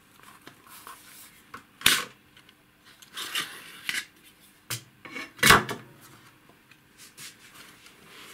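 Metal instrument chassis sliding and scraping out of its sheet-metal case, with several sharp knocks and clicks as it is handled. The loudest knocks come about two seconds and five and a half seconds in.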